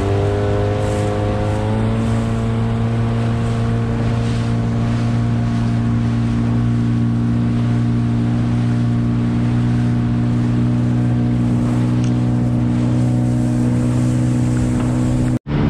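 Gladiator 9.9 hp outboard motor running steadily under way, its pitch rising a little over the first two seconds and then holding even. The sound cuts out for an instant near the end.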